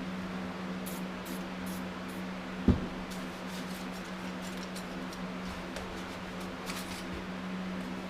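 Steady low hum with faint light clicks and rustles, and a single sharp knock about two and a half seconds in.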